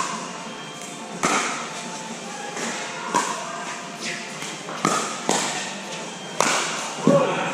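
Pickleball paddles striking a hard plastic ball in a rally, along with the ball's bounces on the court: about seven sharp, hollow pocks, roughly one a second, echoing in a large indoor hall.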